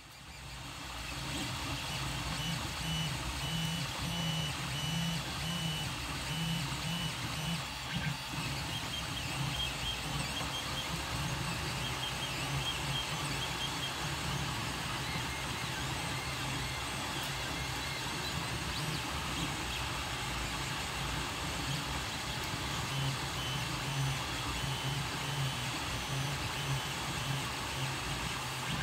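Creality Ender-3 Pro 3D printer running a print: its stepper motors give short tones that keep shifting pitch as the print head and bed move, over a steady fan hiss.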